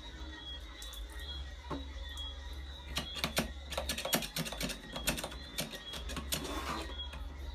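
A run of irregular sharp clicks and taps, like small hard parts or tools being handled, over a low steady hum.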